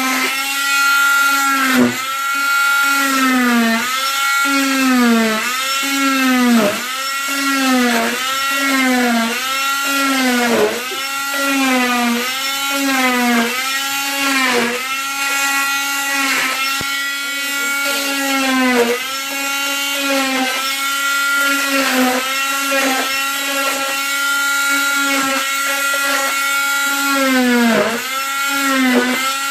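Oscillating cast saw cutting through a leg cast with a loud, steady whine. Its pitch drops briefly and recovers over and over, about once a second for much of the time, as the blade is pushed into the cast and lifted again.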